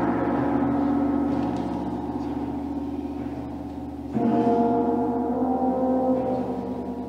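Concert band and pipe organ playing sustained chords that slowly fade. A loud new chord comes in suddenly about four seconds in and dies away, ringing in a reverberant church.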